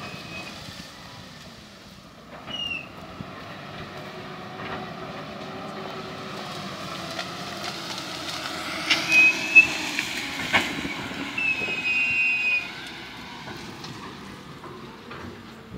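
Wheel loader's diesel engine running steadily, growing louder for several seconds in the middle as its pitch dips and rises. Short high metallic squeals come through three times, with a couple of sharp clanks.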